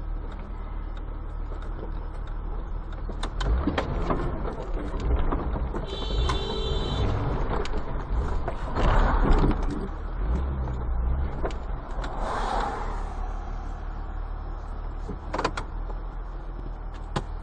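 Engine and road noise inside a moving vehicle, a steady low rumble with a few sharp clicks and a short high beep about six seconds in.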